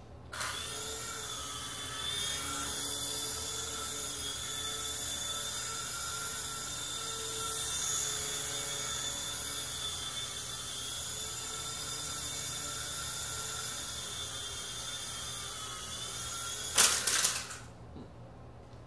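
Blackspyder XT micro RC helicopter's small electric motors and rotors spinning up and running, a steady high-pitched whine that wavers a little in pitch and level. Near the end a short loud clatter, and the whine stops.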